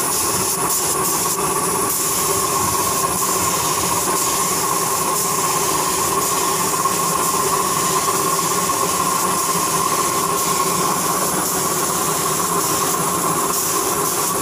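Gravity-feed spray gun hissing as paint is sprayed onto a truck's cab panels, over a steady mechanical drone from the compressed-air equipment.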